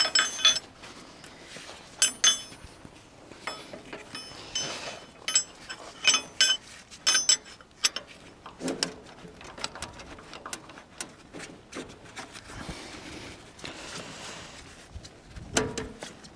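Irregular metallic clinks and clicks of wrenches working on the starter bolts of a 1948 Farmall M as the starter is being unbolted.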